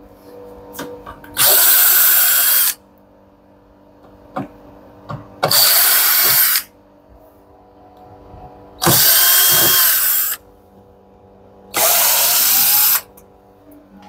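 Power drill-driver run in four short bursts of about a second each, backing out the screws that hold the tumble dryer's side cover, with small clicks of handling between the bursts.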